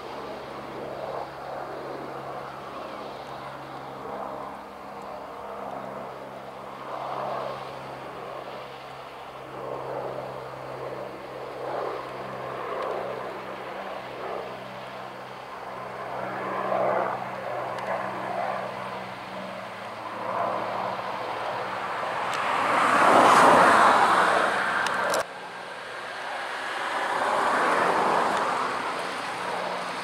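John Deere 6250R tractor's six-cylinder diesel engine running steadily under load while pulling a seven-furrow plough through the soil. It grows louder a little over 20 seconds in, drops off abruptly about 25 seconds in, then swells again.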